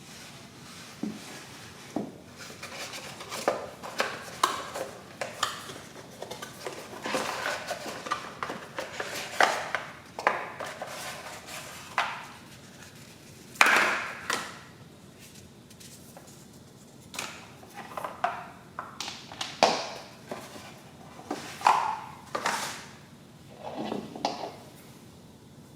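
Packaging being handled during an unboxing: irregular rustles, scrapes and sharp taps of cardboard and plastic, coming in bursts with short pauses.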